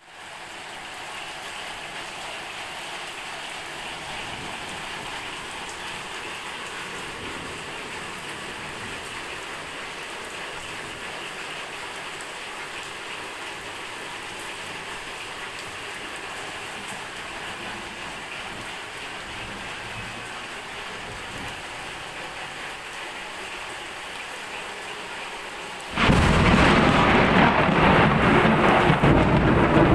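Steady rainfall. About four seconds before the end it suddenly becomes much louder and fuller, with a deep low rumble added.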